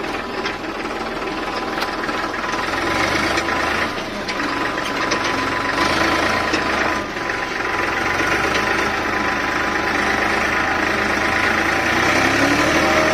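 Homemade electric mini tractor running steadily while pulling a trolley loaded with children. It makes a continuous engine-like running sound with a steady whine.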